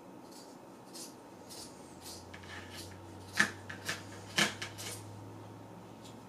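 Scissors snipping through the sleeve of a cotton jersey sweatshirt: a run of short cuts, two of them louder about three and a half and four and a half seconds in.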